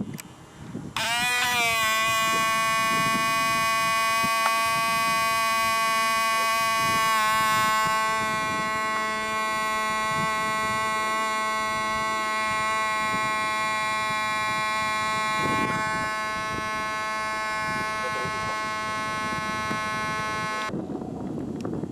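OS 37 glow engine of a Hirobo Shuttle model helicopter running at high speed, a loud, steady, high-pitched whine. The pitch rises briefly as it comes up to speed, dips slightly about seven seconds in, and the sound cuts off abruptly near the end.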